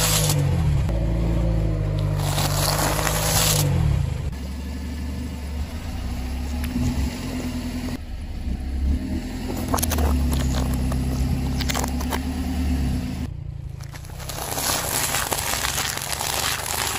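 A car tyre rolling slowly over puffed rice cakes, plastic bottles of jelly and plastic cups of ring cereal, crushing them with crunching and cracking over the low hum of the car's engine. The loudest crunching comes about two to three and a half seconds in and again near the end, with sharp cracks around ten seconds.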